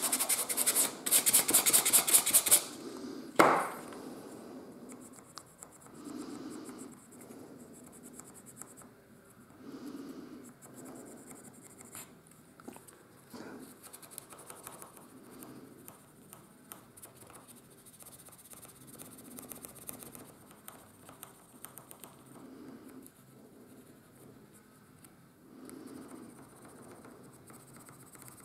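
Quick back-and-forth sanding strokes of a laser-cut plywood part on abrasive paper for the first couple of seconds, then a sharp knock. After that, faint scratching of a pencil lead rubbed around the edges of the part's holes, laying down graphite as a dry lubricant so the piston rod and slide valve move without friction.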